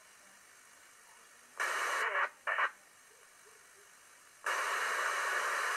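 2-metre (145 MHz) amateur band radio receiver audio: two short noisy bursts of received signal about one and a half and two and a half seconds in, then from about four and a half seconds a steady hiss of radio noise.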